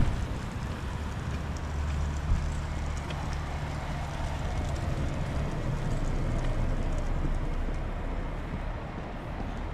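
Steady low rumble of street traffic, with a short knock a little after two seconds in.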